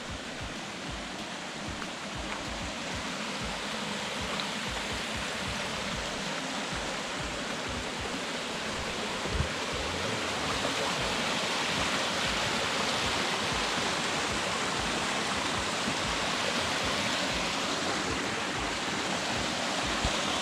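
Rushing water of a stream: a steady, even rush that grows a little louder over the first half.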